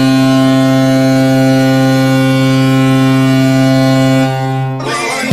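Vegas Golden Knights hockey goal horn sounding one long, loud, steady blast of several low tones together. Near the end the horn drops off and music begins.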